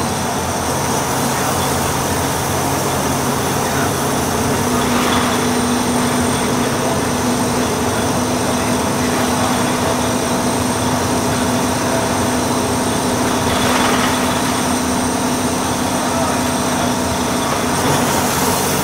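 Volvo B6BLE single-deck bus's diesel engine and road noise heard from inside the passenger saloon while the bus is driving, a steady drone with a couple of brief louder swells around five and fourteen seconds in.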